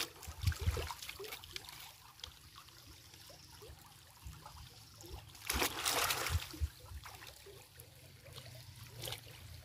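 Shallow stream trickling over stones, with splashing as a bundle of brushy branches is dragged and lifted through the water; the loudest splash comes about five and a half seconds in. A few dull low thumps are mixed in.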